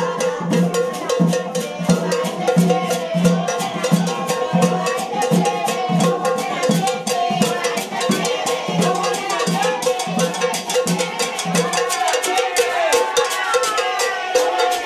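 Latin carnival music with fast, dense percussion ticking and a pulsing low drum beat that drops out near the end.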